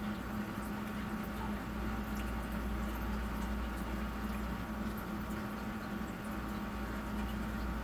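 Steady low electrical hum of room background noise, with faint scattered small clicks.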